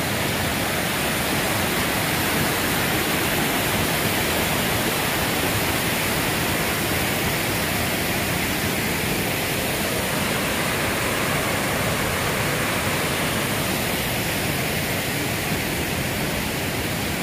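Mountain river rushing over boulders in whitewater rapids: a steady, unbroken roar of moving water.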